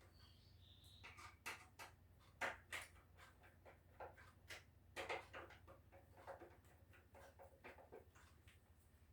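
Faint, irregular light clicks and knocks, a dozen or so, over a low steady hum.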